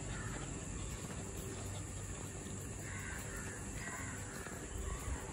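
Outdoor ambience with a steady background hiss and a few short, faint bird calls a few seconds in.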